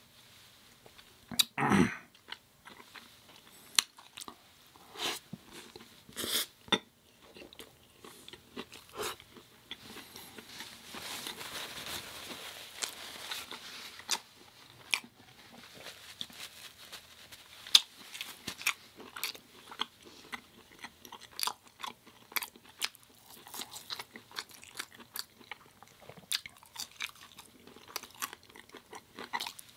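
Close-miked eating of a burger and fries: crisp bites and chewing, with many sharp crunches spread throughout.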